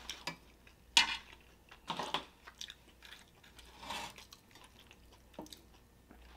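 Close-miked eating: soft chewing and a fork digging filling out of a foil-wrapped burrito, as a string of short clicks, scrapes and crinkles about a second apart.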